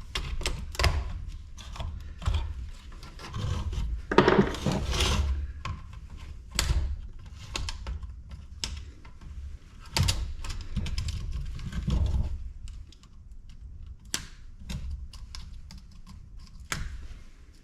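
Irregular clicking, tapping and knocking of hand tools and metal and plastic parts as a large light fixture is taken apart for scrap, with a few louder knocks at about four, ten and twelve seconds in.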